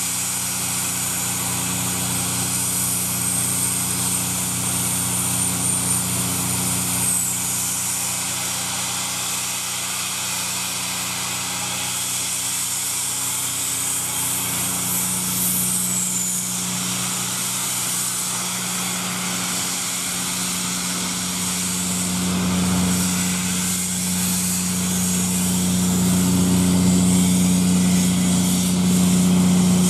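LNER A4 steam locomotive hissing steam heavily while standing, with a steady low hum underneath. It grows louder over the last several seconds.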